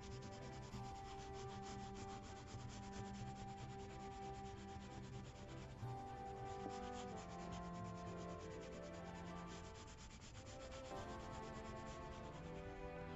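Colour pencil rubbed rapidly back and forth on drawing paper in many quick shading strokes, over soft background music of held notes.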